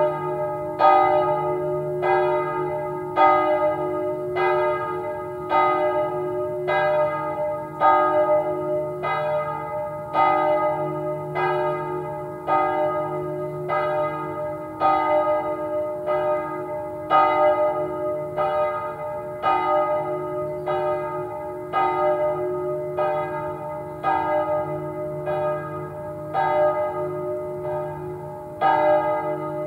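Swinging church bells ringing the evening Angelus: a steady run of regular strokes, about one a second, each ringing on into the next over a low steady hum.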